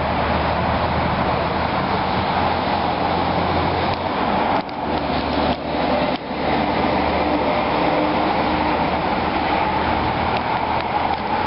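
Steady traffic and engine noise with a faint low hum, dipping briefly three times about halfway through.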